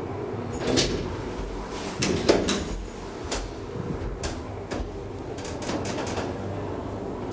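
DEVE hydraulic elevator's doors clunking and rattling: a run of sharp knocks and clatters, loudest about two seconds in, over a steady machine hum.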